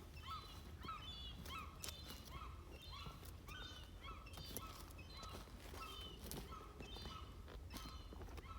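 Footsteps walking at a steady pace, about two steps a second, each step giving a short squeak along with a crunch.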